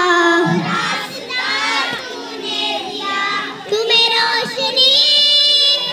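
A group of young children singing a song together, one small girl singing into a handheld microphone.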